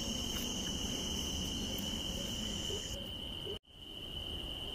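Crickets chirping in a steady, high trill. About three and a half seconds in, the sound drops out to silence for a moment, then picks up again.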